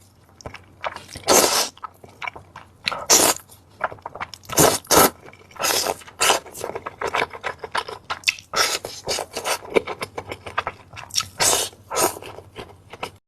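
Spicy ramen noodles slurped and chewed close to the microphone: repeated short, noisy slurps with wet chewing between.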